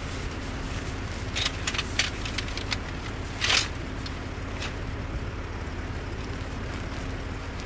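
A car on the move: a steady low engine and road rumble with a faint steady hum, and a few sharp clicks or knocks, the loudest about three and a half seconds in.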